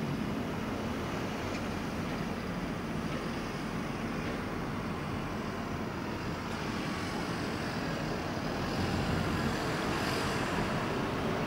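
Steady outdoor road-traffic noise, swelling slightly about nine seconds in, with no distinct thunderclap.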